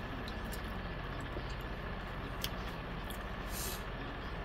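Steady rumbling background noise with a faint thin high tone running through it, broken by a single sharp click about two and a half seconds in and a brief hiss about a second later.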